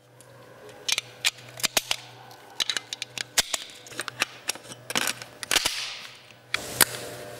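Sharp metallic clicks and clacks at uneven intervals as a submachine gun is handled, over a steady low hum.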